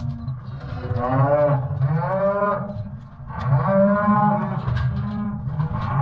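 Cattle bawling, with three or four long, wavering moos in a row, some of them overlapping, over a steady low rumble.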